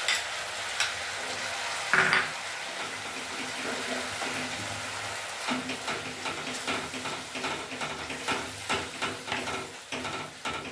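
Spiced masala paste sizzling in oil in a pan, with a spatula scraping and clicking against the pan as it is stirred. There is a louder knock about two seconds in, and the scraping strokes come thick and fast from about halfway.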